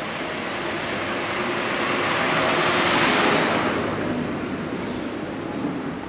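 A vehicle passing close by, its noise swelling to a peak about three seconds in and then fading away.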